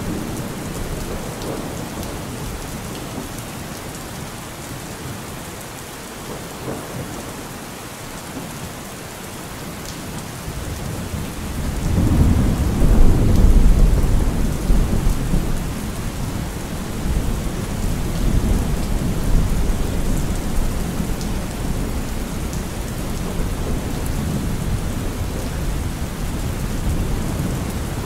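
Steady rain with thunder. A long, low roll of thunder swells about twelve seconds in and fades over a few seconds, with the rain going on underneath.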